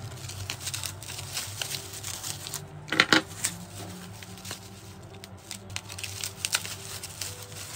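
Bubble wrap crinkling and rustling as small gel nail polish bottles are unwrapped from it, with sharp clicks of the bottles being set down on the table; the loudest clicks come about three seconds in.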